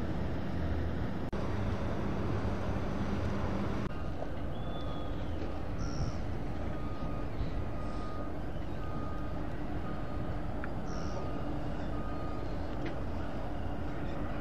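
Outdoor harbour ambience: a steady low rumble of wind on the microphone and distant machinery. From about four seconds in, a short electronic beep at one pitch repeats evenly, a little over once a second, with a few brief high chirps over it.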